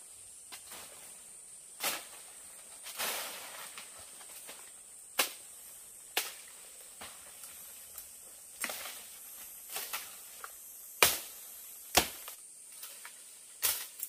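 Dry twigs and branches snapping and leaves rustling as a person pushes and climbs through dense undergrowth on foot. There are sharp cracks every second or two, with the two loudest late on, over a steady high background hiss.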